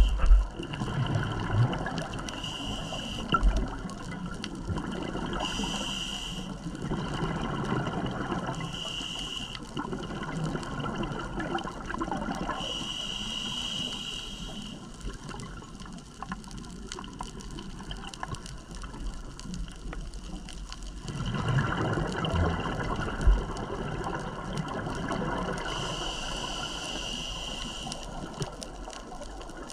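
A scuba diver breathing through a regulator underwater: long bubbling rushes of exhaled air lasting several seconds each, alternating with short hisses of breath drawn through the regulator.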